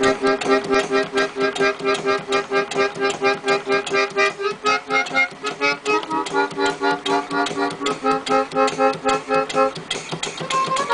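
A.G. MacDonell stand player organ playing a tune from a perforated paper roll, driven by a belt from a Sipp model steam engine. Its reedy chords sound in quick even pulses, about five a second, and the chord changes a few times.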